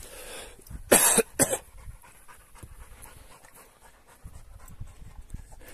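Hunting hound panting. About a second in there are two short, loud rushes of noise.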